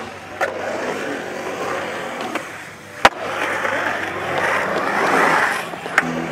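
Skateboard wheels rolling and carving on the concrete of a skate bowl, a steady rushing roll. A sharp clack about three seconds in is the loudest sound, and lighter knocks come near the start and near the end.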